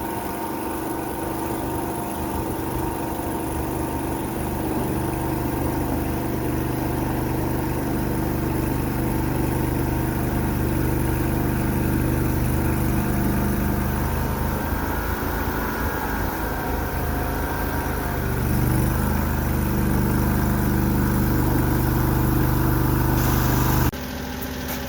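Mini skid steer's engine running steadily with a rising, busier note about eighteen seconds in. Near the end the sound drops abruptly to a quieter engine note.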